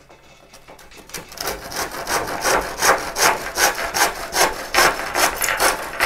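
Hand saw cutting through a wooden piece, sawing off its end with steady back-and-forth strokes, about three a second. The strokes start quietly and get louder after about a second.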